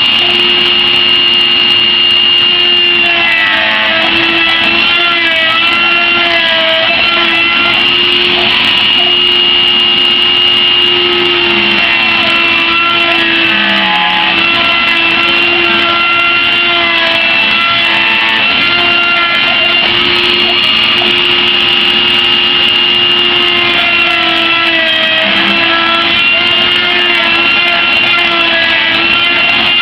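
CNC Shark router spindle running steadily with a high whine as a V-bit cuts, joined by stepper-motor tones that rise and fall in pitch as the machine moves the bit.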